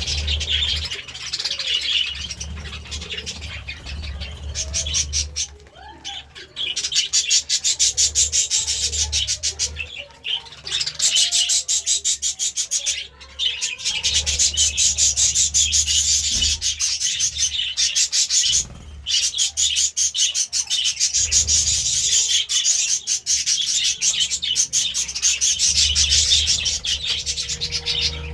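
Budgies chirping and chattering in a fast, continuous warble, with a few short pauses.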